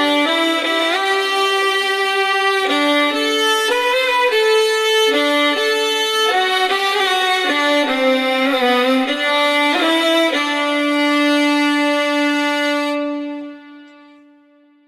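Several violin parts layered in harmony, recorded through a United UT Vintage87 large-diaphragm condenser microphone. The chords change every second or so, then settle on a long held low note that fades away near the end.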